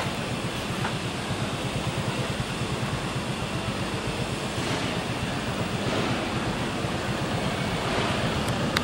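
Steady rushing background noise with no distinct events, and a single sharp click near the end.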